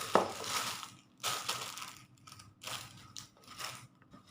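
Packaging rustling and crinkling in several short bursts as it is handled.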